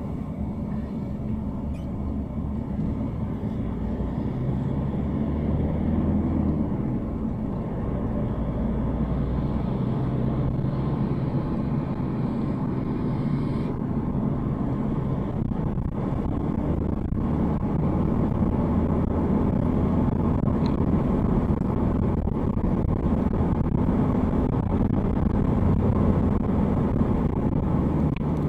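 Car engine and tyre rumble heard from inside the cabin while driving on a paved road, a steady low hum whose pitch shifts a little several times.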